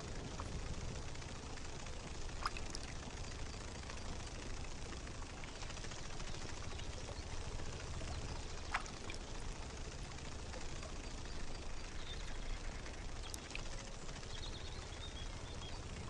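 Faint steady background hiss with a few soft clicks, and faint high chirps near the end.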